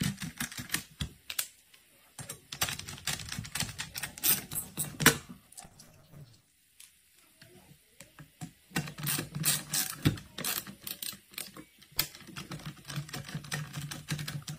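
Screwdriver turning small screws into the metal cover plate of an angle-grinder chainsaw attachment: a run of irregular light clicks and ticks, with a pause about six seconds in before the clicking resumes.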